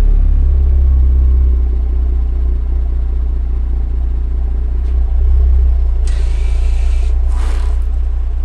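Audi S5's turbocharged V6 idling steadily after a cold start, heard close to the tailpipes with the exhaust valves replaced by dummy plugs, giving a deep, even exhaust note.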